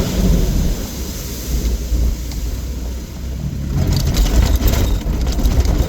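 Vehicle engine running while driving on a dirt back road, with steady low rumble and road noise; from a little under four seconds in, a rougher, noisier passage joins it.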